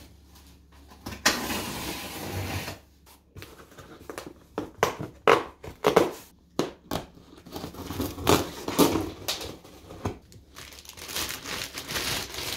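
Packaging being torn open and handled: plastic and paper crinkling and tearing in uneven bursts, with a run of short sharp rustles in the middle.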